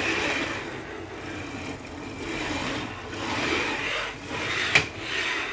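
A carriage on a homemade CNC router's aluminium extrusion rails, moved back and forth by hand: a rolling rub that swells and fades about once a second, with one sharp click near the end.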